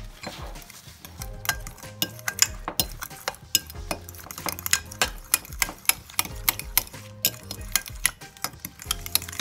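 A metal utensil clinking quickly and unevenly against a dish while stirring, over background music.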